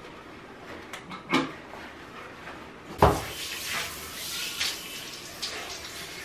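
A few light clicks, a sharp knock about three seconds in, then a tap running water into a sink in a steady hiss.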